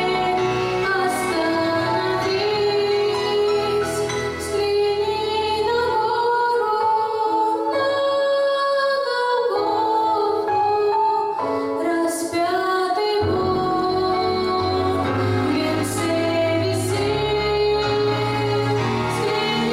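A woman singing a song with instrumental accompaniment; the low bass part drops out for several seconds in the middle and then comes back in.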